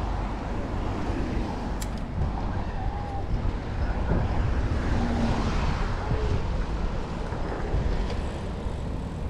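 Steady wind rumble on the microphone and road noise from a bicycle riding at speed along a city street, with traffic in the background.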